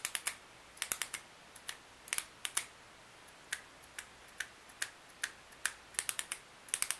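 Plastic click button of a TUL solid-metal-barrel retractable ballpoint pen pressed over and over, retracting and extending the refill. Sharp clicks come at an uneven pace, many in quick pairs or short runs.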